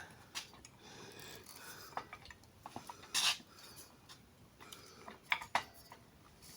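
Small hard objects being handled: scattered light clicks and clinks, with a brief scrape or rustle about three seconds in.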